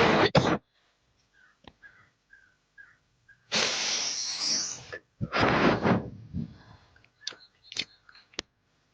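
A girl making breathy noises close to a doorbell camera's microphone: two long bursts of breath, one about three and a half seconds in and one just after, then a few sharp clicks near the end.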